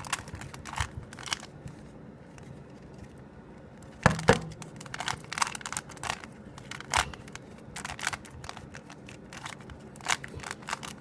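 A 3x3 Rubik's Cube being turned quickly during a solve: irregular clicks and clacks of the plastic layers turning. About four seconds in there is a louder knock of the cube against the surface.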